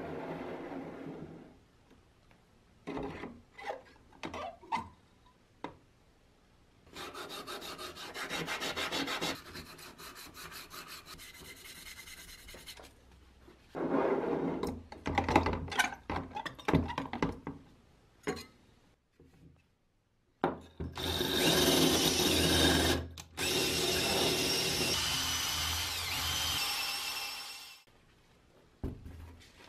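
Workshop tool work in short cut-together clips: knocks and rough scraping or rubbing, then a small power tool running steadily for about seven seconds in the second half.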